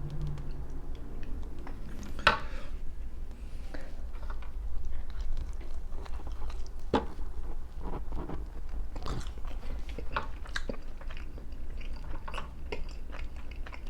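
A person chewing and biting pizza close to the microphone, with irregular soft crunches and mouth clicks from the crust, over a low steady hum.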